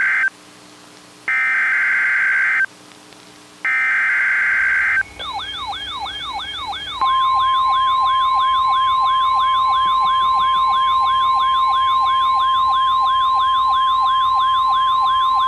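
Emergency Alert System SAME header data bursts, a harsh buzzy chirping, sound twice, with short gaps between them. A rapidly sweeping siren-like attention tone then starts, rising and falling about three times a second. About seven seconds in, the steady 1050 Hz NOAA Weather Radio alert tone joins it and holds.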